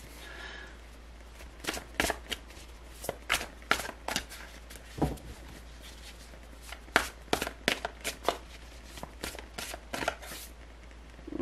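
A deck of tarot cards being shuffled by hand: an irregular run of sharp card clicks and slaps for most of the stretch.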